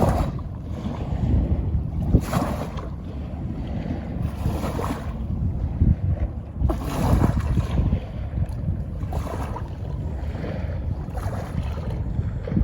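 Fast-flowing Jamuna river water washing against the bank in surges about every two seconds, under a heavy low rumble of wind buffeting the microphone.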